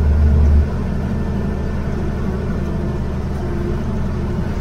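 Steady low rumble of a bus engine and road noise heard from inside the moving bus, dropping a little in level about half a second in.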